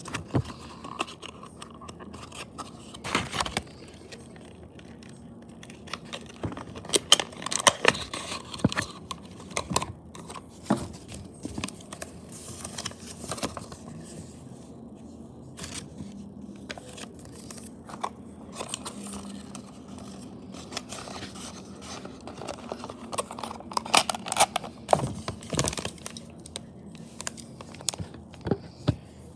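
Irregular handling noises: scattered clicks, scrapes and rustles, busiest in a few clusters, over a faint steady hum.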